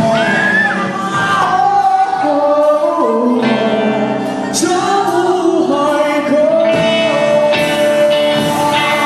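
Live rock band playing: a male singer's vocal line over electric guitar, bass guitar and drums.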